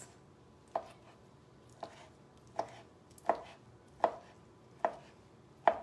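Knife slicing cooked chicken breast on a plastic cutting board: seven short knocks of the blade meeting the board, about one every three-quarters of a second.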